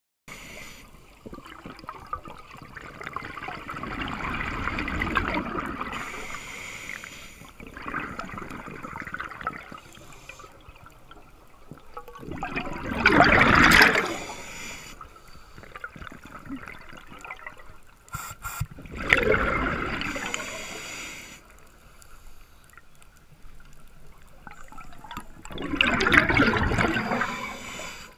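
Scuba diver's exhaled regulator bubbles gurgling and rushing past an underwater camera housing, in repeated surges about every six or seven seconds with the rhythm of breathing, quieter between breaths.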